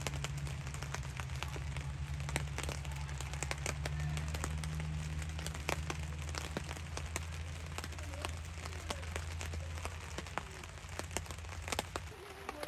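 Rain falling on a fabric awning overhead, individual drops ticking irregularly. A steady low hum runs underneath and stops near the end.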